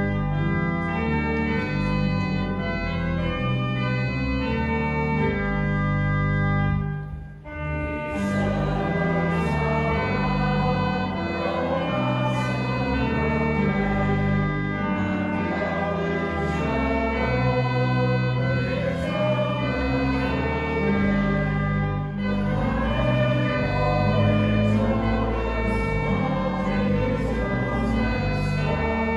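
Church pipe organ playing a hymn introduction in held chords, pausing briefly about seven seconds in. The organ then accompanies voices singing the hymn together.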